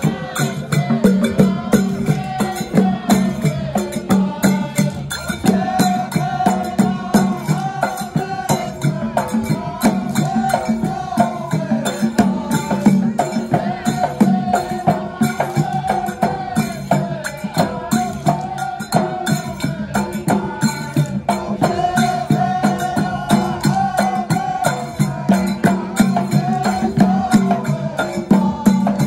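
Traditional Emirati ayyala music: drums and hand percussion beating a fast, steady rhythm under a chanted melody from the lines of men.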